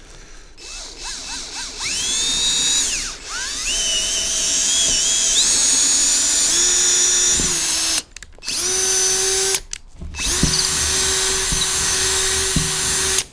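Hercules cordless drill with a 5/16-inch bit boring a hole through a melamine board. The motor whine rises as it spins up and shifts in pitch under load. It stops twice for a moment past the middle, then runs again.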